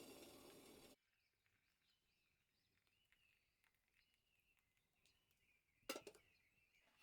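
Near silence: a hiss that cuts off abruptly about a second in, then faint, repeated high bird chirps over quiet outdoor ambience, with a short sharp click near the end.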